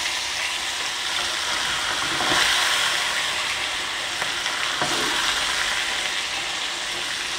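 Chilli- and turmeric-marinated sardines sizzling steadily as they go into hot oil in a steel kadai. The sizzle swells a little about two seconds in.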